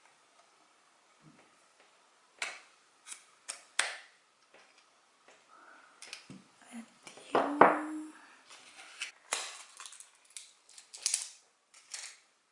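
Sharp plastic clicks and short scratchy rustles from handling a GoPro Hero 8 Black and its battery while fitting the battery in, with the loudest clatter about seven and a half seconds in.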